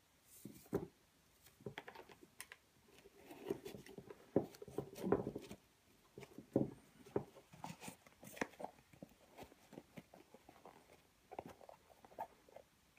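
Handling noise from Adidas Predator Absolute football boots: laces being pulled and threaded through the eyelets, with irregular soft rustles, scrapes and taps of the boot against the table, busiest in the middle.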